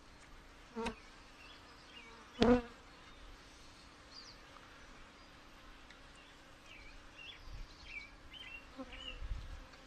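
Honey bees of an open, crowded hive buzzing steadily. Two sharp knocks come about a second and a half apart, the second the loudest.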